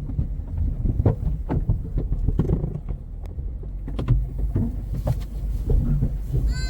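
Vehicle driving, a steady low rumble with frequent knocks and clunks, as over rough ground.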